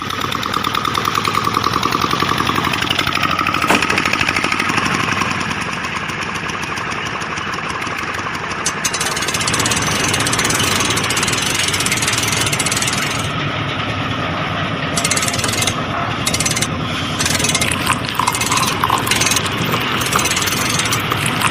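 A small motor running with a fast, steady rattle, the kind that drives a miniature model construction machine.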